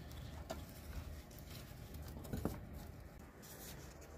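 Faint rustling and a couple of light clicks from a gloved hand working a small bolt loose on the transmission case.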